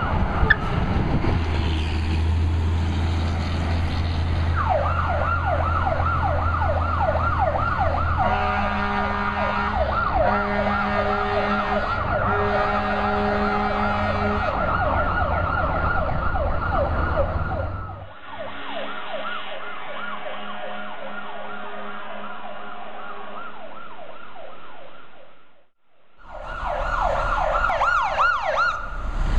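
Fire engine responding with its electronic siren yelping in fast rising-and-falling sweeps over a steady engine rumble, with several horn blasts sounded over the siren in the middle. Later the engine sound drops away and the siren carries on more faintly, then cuts out briefly before the yelp and engine come back near the end.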